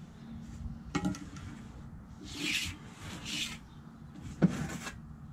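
Wet mortar slurry being scraped out of the joint at the edge of a bluestone flagstone: a click about a second in, then two short rasping scrapes. Near the end comes one sharp knock of a tool against stone.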